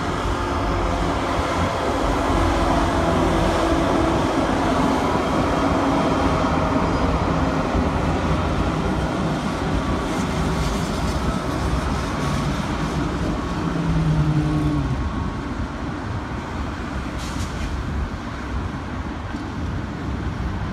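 Freight train passing, its diesel locomotives running with a steady engine drone. About three quarters of the way in the engine tones drop away and the double-stack container cars roll by with a steady rumble.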